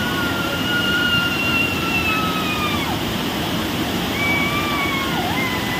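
Waterfall pouring and splashing onto a person standing beneath it, a steady rushing noise. Over it, two long high-pitched held tones: the first sinks slightly and drops away about three seconds in, the second begins about a second later.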